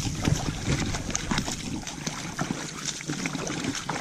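Footsteps wading through shallow, muddy stream water in boots, with irregular small splashes and sloshing.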